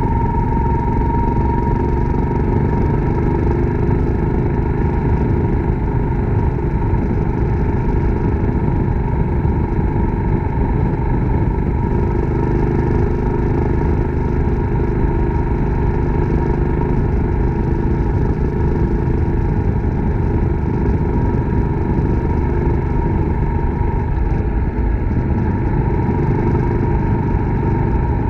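Suzuki Grasstracker Big Boy's single-cylinder four-stroke engine running at a steady speed while riding, with road and wind noise.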